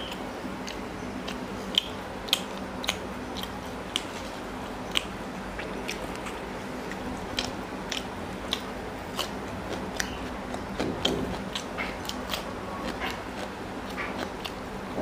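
Close-miked eating sounds: a person chewing and biting paratha with chicken curry by hand, with irregular short wet clicks and smacks from the mouth. A low steady hum runs underneath.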